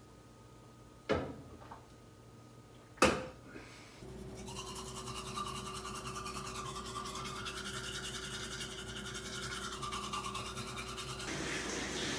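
Two sharp knocks about one and three seconds in, then a manual toothbrush scrubbing teeth in quick back-and-forth strokes. Near the end this gives way to the hiss of a running shower.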